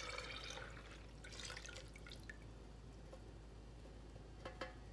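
Melted soy wax pouring in a thin stream from a stainless steel pitcher into a plastic pail, a faint trickling and splashing that thins out after about a second. A couple of light clicks near the end.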